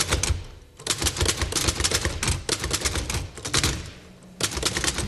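Manual typewriter being typed on quickly: a dense run of key strikes, with two short lulls, about half a second in and again around four seconds in.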